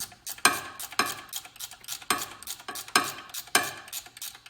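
Metal wrench clicking and clinking in uneven strokes, about two a second, as a long alternator mounting bolt is turned out.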